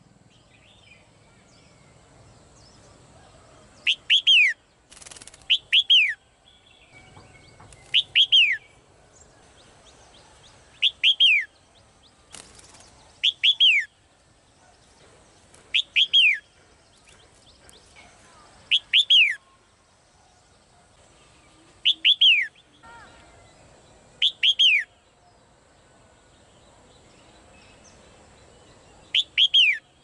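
Female red-whiskered bulbul calling: about ten short calls, each a quick pair of sharp downward-sweeping whistled notes, repeated every two to three seconds. Two brief bursts of rustling come between the calls.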